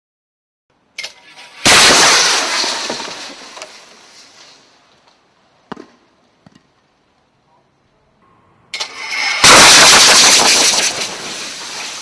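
Compressed-air breathing apparatus cylinders having their valves broken off. Each time there is a sudden, very loud blast of high-pressure air rushing out, which dies away over about three seconds. The first comes near the start and the second about eight seconds later, with a couple of faint knocks between them.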